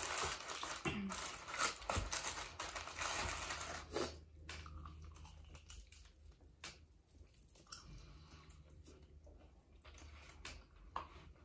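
Chicken wings being eaten by hand: meat torn off the bone and chewed, with rustling of the paper basket liners. It is busier in the first few seconds, then settles into scattered soft clicks and mouth sounds.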